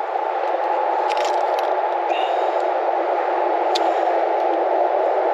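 A steady rushing noise with no rise or fall, with a few faint clicks of something being handled.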